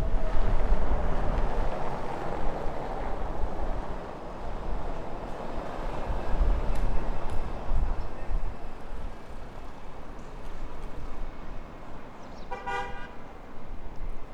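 Jet airliner's engines at takeoff power during a departure: a broad, noisy rumble, loudest in the first few seconds and then fading lower. Near the end, a single short horn toot.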